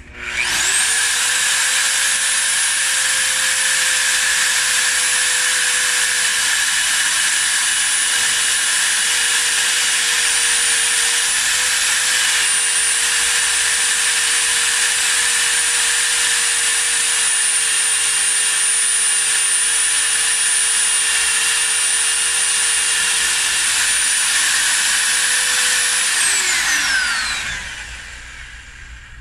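Milwaukee magnetic drill press spinning up about half a second in, then running at a steady high-pitched whine with small dips in pitch while drilling a pilot hole in steel plate. Near the end the motor winds down with a falling pitch.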